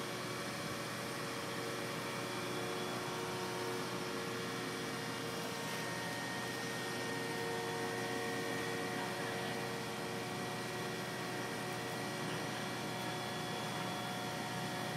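Mobile crane's engine and hydraulics running steadily during a lift, a hum made of several steady whining tones over a noise bed, with one high whine growing stronger about five seconds in.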